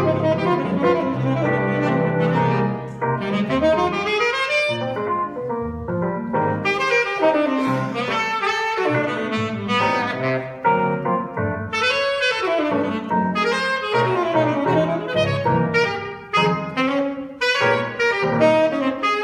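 Live jazz: a saxophone plays a flowing melodic line over electric keyboard and drum kit.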